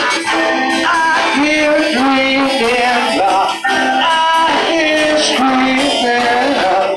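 Live band playing a song: guitars, saxophone and congas, with a melody carried in long held notes that bend and slide. The bass is thin.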